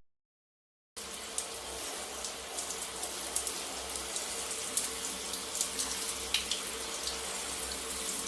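Dead silence for about a second, then a steady rush of running water with small scattered splashes and a faint low hum.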